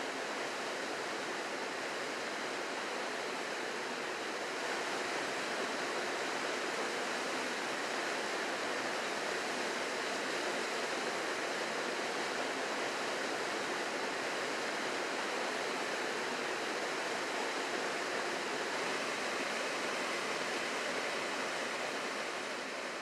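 Small waterfall pouring into a plunge pool: a steady, even rush of falling water, fading out near the end.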